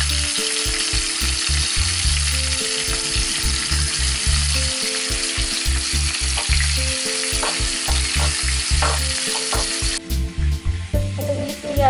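Masala-coated tilapia and pangas fish pieces sizzling in hot oil in a pan; the sizzle cuts off abruptly near the end. Background music with a steady beat plays throughout.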